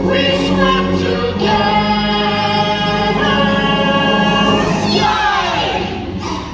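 Stage-musical song: several voices singing long held notes together over the show's music, with a downward sweep in the music about five seconds in.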